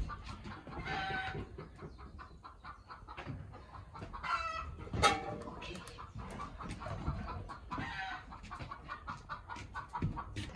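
Chickens clucking, three bouts of calls a few seconds apart, with light clicks and knocks in between.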